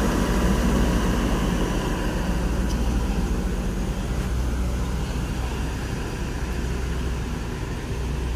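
Mercedes-Benz intercity coach's diesel engine running as the bus pulls away, its low, steady sound slowly fading as it drives off.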